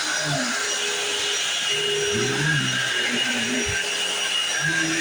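Dirt Devil Classic vacuum cleaner running steadily over a rug: an even motor rush with a steady high whine.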